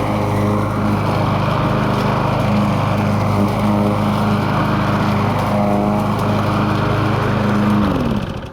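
Small gasoline lawn mower engine running at a steady speed, now working after a simple repair, then shut off near the end, its pitch falling as it winds down.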